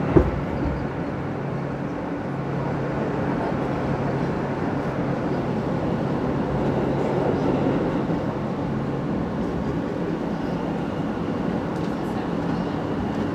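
Inside an R160 subway car running at speed: a steady rumble of wheels on rail with a steady motor hum, and a single sharp knock just after the start. About two-thirds of the way through, the low hum gives way to a higher-pitched one.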